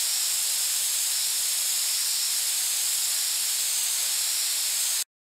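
Aerosol spray can spraying in one long steady hiss with a faint high wavering tone, cutting off abruptly near the end.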